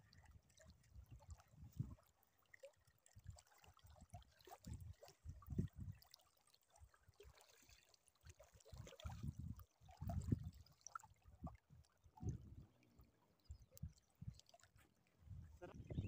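Faint lakeside ambience: small waves lapping at the shore, with soft gusts of low rumble coming and going.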